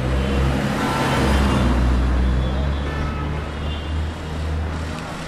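Street traffic with a motor vehicle's engine running close by, a heavy low rumble that is loudest in the first couple of seconds and cuts off near the end.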